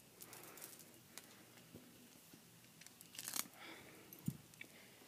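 Faint handling noise from an iPad being picked up and moved while recording: soft rustling, a brief scrape about three seconds in, and a light tap a second later.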